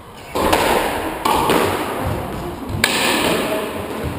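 Squash ball struck by rackets and hitting the court walls during a rally: three loud hits, each followed by the ringing echo of the enclosed court.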